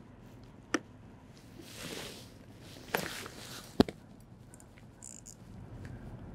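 Quiet handling sounds: three short sharp taps, the first about a second in and two more close together near the middle, with a soft rustling swell between them.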